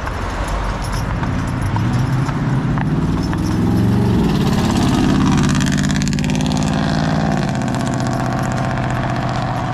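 Traffic passing close by: a motor vehicle's engine revs up and runs past, loudest about four to six seconds in, then drops back to a steadier traffic hum.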